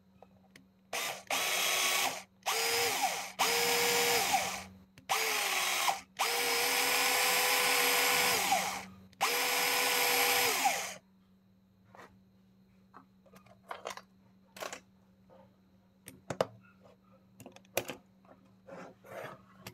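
Old 12-volt cordless drill's motor running from a mains-fed 12 V switching power supply instead of its battery, triggered in seven bursts over about ten seconds, the longest about two and a half seconds; each spins up and winds down. Afterwards, light clicks and knocks of handling.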